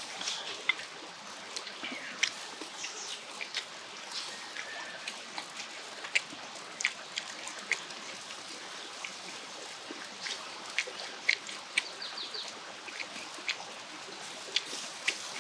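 Slices of pork sizzling on a wire barbecue grill: a steady hiss broken by frequent sharp pops and crackles.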